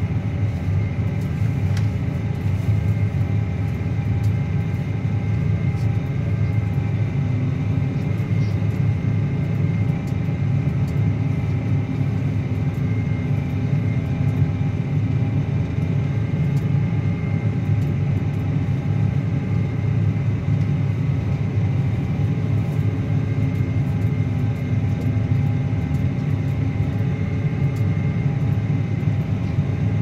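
Claas Axion 850 tractor's six-cylinder diesel engine running at a steady, even pitch under load, pulling a reversible plough through the soil.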